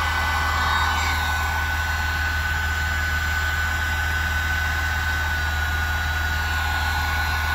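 Electric heat gun blowing hot air with a steady high whine and hiss as it shrinks waterproof heat-shrink connectors on a wiring harness. Under it runs a steady low rumble.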